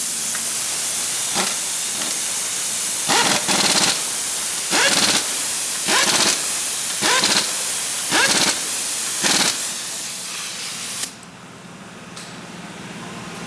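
Compressed air hissing steadily in a tire shop, with a string of short louder spurts about once a second. It cuts off abruptly about eleven seconds in.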